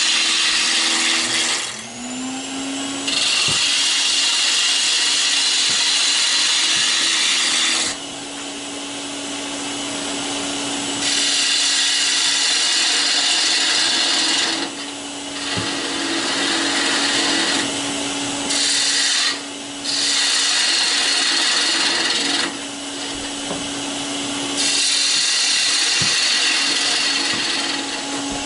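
Wood lathe running with its steady motor hum, which rises in pitch about two seconds in as the lathe speeds up. A turning tool cuts a small East Indian rosewood blank in repeated passes, each a stretch of loud hissing that starts and stops.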